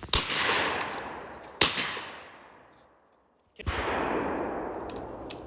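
Shotgun shots: two shots about a second and a half apart, each trailing off in a long echo, then after a short break another loud shot with a long tail.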